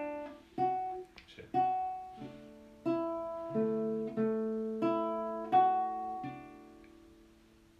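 Acoustic guitar played by hand: chords struck one after another, each left to ring and decay, with the last chord ringing out and fading away near the end.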